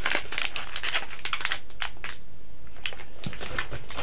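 Packaging crinkling and rustling as kit items are handled, with a dense run of crackles in the first couple of seconds, then sparser rustles and clicks.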